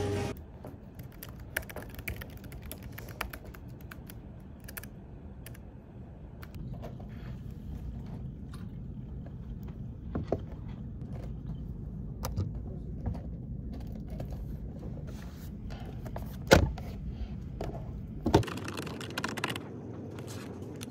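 Desk-handling sounds over a low, steady room hum: scattered taps and clicks as a phone is set down on a wooden desk, one sharp knock about three-quarters of the way in, and a short run of computer-keyboard typing near the end.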